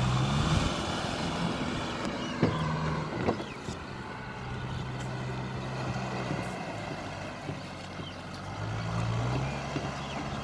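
Kubota tractor's diesel engine running under load as the tractor churns through flooded paddy mud with its rotary tiller. The engine note shifts and rises near the end, with a couple of sharp knocks early on.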